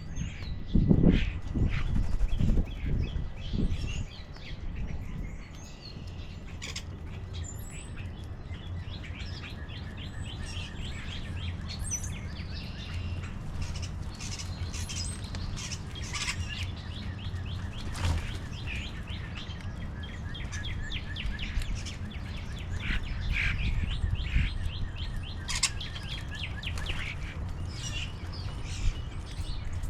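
Small birds chirping and calling, many short chirps overlapping, over a steady low rumble, with a few louder low rumbles in the first few seconds.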